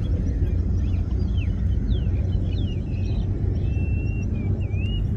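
Several birds whistling and chirping in short calls that slide up and down in pitch, over a steady low rumble.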